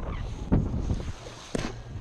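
Wind buffeting the microphone over the wash of water against a boat's hull, with a sharp click about one and a half seconds in.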